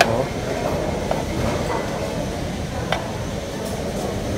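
Metal serving tongs clicking against buffet trays and a plate, a sharp click at the start and a few lighter ones later, over a steady rumbling background noise.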